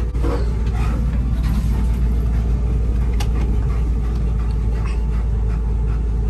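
Steady rush of wind and road noise inside a moving car with the window rolled down, a heavy low rumble of air buffeting.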